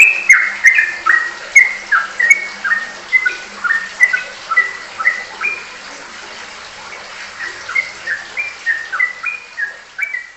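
Yellow-vented bulbul (trucukan) singing in a rapid string of short, clear whistled notes, about two or three a second, many of them dropping in pitch. The notes pause for about a second and a half in the middle, then start again.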